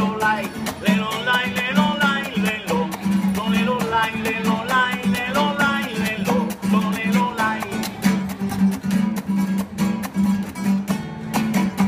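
Acoustic guitar played solo in an instrumental interlude: a steady strummed rhythm with a picked melody running over it.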